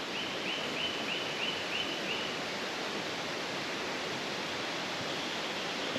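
Steady rush of running water in rainforest. In the first two seconds a creature gives a run of about seven short, high chirps, roughly three a second, with a fainter run of similar chirps near the end.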